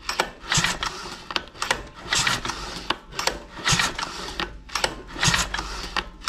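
The recoil starter of a new GX35-clone four-stroke grass cutter engine is pulled four times, about a second and a half apart, each pull a short whirring rasp as the engine turns over. The engine has no fuel yet and does not fire: it is being dry-cranked so the fresh oil reaches the bearing and piston before the first start.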